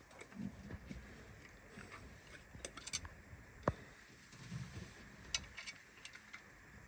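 Faint, scattered clicks and light taps of small bolts and metal parts being handled and fitted at a steering column, with one sharper click a little past the middle.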